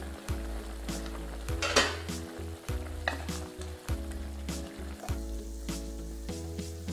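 Drumstick curry bubbling and sizzling in a clay pot while a wooden spoon stirs it, with repeated light clicks and scrapes against the pot; the loudest scrape comes about two seconds in.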